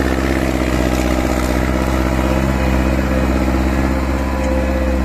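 Homemade RC mini tractor running steadily as it tills loose soil with its rotary tiller: a constant motor drone that holds one pitch throughout.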